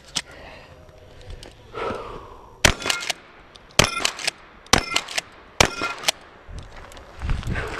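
Pump-action shotgun fired four times, about a second apart, with the pump worked between shots, which gives smaller clacks after each blast.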